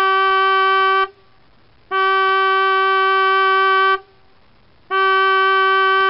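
Boat horn sounding steady blasts of one unchanging pitch: one ends about a second in, the next lasts about two seconds, and a third starts about five seconds in.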